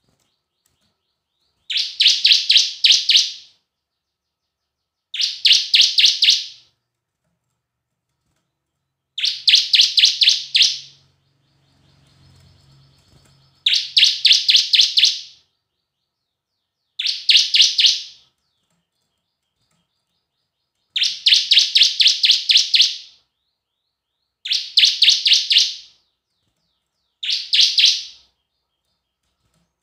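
Bar-winged prinia (ciblek) singing: eight short phrases of rapid, sharp, high repeated notes, each lasting one to two seconds, with pauses of one to three seconds between them.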